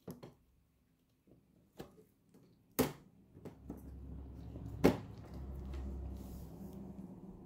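An Argentine black-and-white tegu feeding on a mouse on a wooden floor: a few short, sharp clicks and knocks, the two loudest about three and five seconds in, with a low steady rumble setting in after the first of them.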